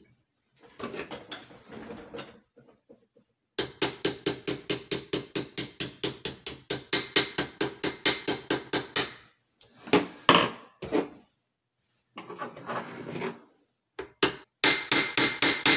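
Small hammer tapping the stepped hinge pin back into the arm brace's hinge, in a quick steady run of about four taps a second. After a pause there are a few more taps, then some handling of the parts, then another fast run of taps near the end.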